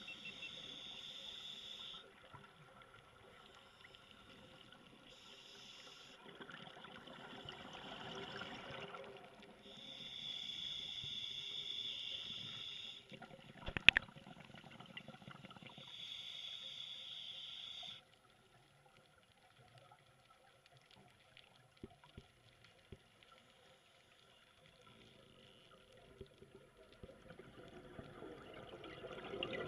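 Scuba diver breathing through a regulator underwater: a hiss on each inhalation alternating with the rough rush of exhaled bubbles, four or five breaths. There is one sharp click about halfway through, and the breathing fades to faint water noise after about two-thirds of the way.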